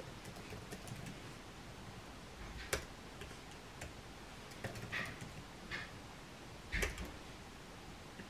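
Light typing on a MacBook laptop keyboard: soft, irregular key clicks, with a few harder taps standing out.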